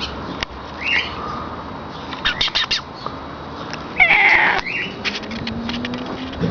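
Cat vocalising: a short call about a second in, then a loud, drawn-out cry about four seconds in, the loudest sound, followed at once by another short call. A few sharp clicks come just before the loud cry.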